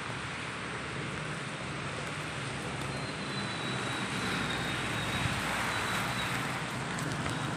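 Heavy rain pouring steadily onto a waterlogged street, a constant even hiss.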